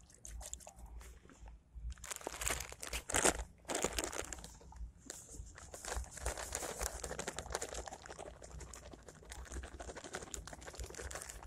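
Dense, irregular crinkling and crackling, like something crumpled or rustled by hand, loudest about two to four seconds in.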